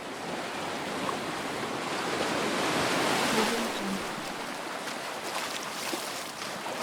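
Footsteps wading and splashing through shallow sea water over a pebble beach as a wave washes in. The wash swells to its loudest about three seconds in, then draws back with small scattered clicks.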